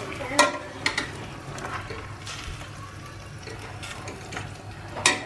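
A spoon stirring a simmering stew in a stainless steel pot, with a few sharp clinks of the spoon against the pot, the loudest near the end.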